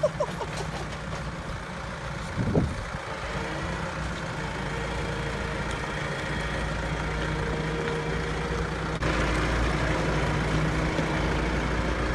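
Tractor engine running steadily with a low hum, stepping up in loudness about nine seconds in.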